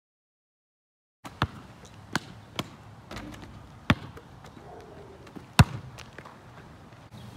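Basketball bouncing on asphalt: five sharp bounces at uneven intervals, starting about a second in, the loudest coming late.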